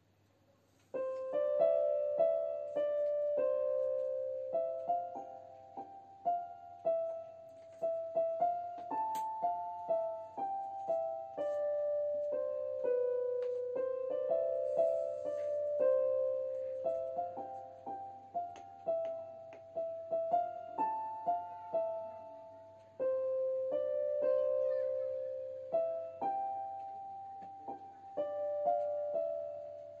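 Background piano music: a slow, gentle melody of single struck notes, starting about a second in.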